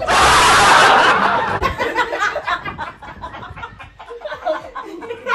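A sudden loud rush of noise lasting about a second and a half, then a group of women laughing and snickering.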